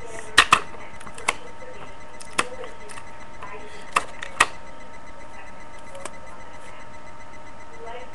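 About six sharp taps and knocks of a rolled paper tube and a tape dispenser being handled on a wooden desk, the loudest two close together right at the start and the last about four and a half seconds in. A steady hiss from a webcam microphone lies underneath.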